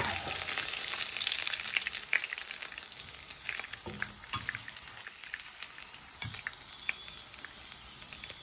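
Floured chicken thighs shallow-frying in hot sunflower oil in a frying pan: a steady sizzle that slowly dies down as pieces are lifted out. A few light knocks of a fish slice against the pan.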